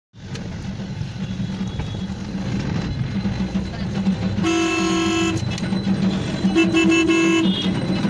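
Road traffic noise with two vehicle horn honks, each about a second long, about four and a half and six and a half seconds in.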